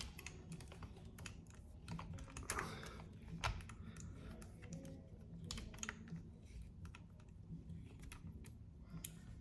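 Faint, irregular small clicks and ticks of a screw being turned into a 3D-printed front grip on a shotgun, its threads just catching.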